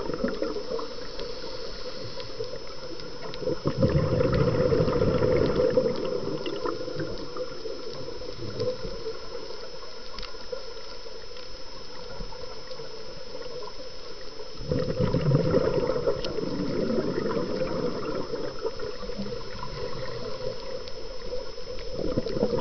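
Underwater ambience picked up by a camera underwater: a steady muffled wash of water that twice swells into louder bubbling and gurgling, with a faint steady high whine.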